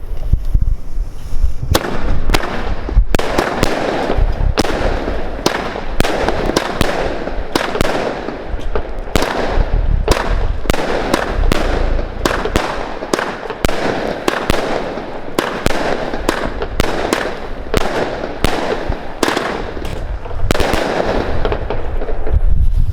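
Original Fireworks Game Breaker 19-shot cake firing: a rapid string of shots and bursts that starts about two seconds in and stops a couple of seconds before the end. Wind rumbles on the microphone before and after the volley.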